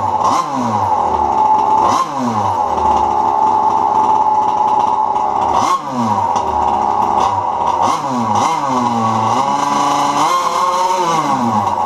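Gas two-stroke engine of a Losi MTXL RC monster truck running, its pitch rising and falling about five times as the throttle is blipped, with steadier running in between.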